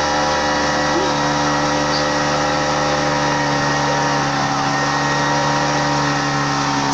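Motorboat engine running steadily at a constant speed.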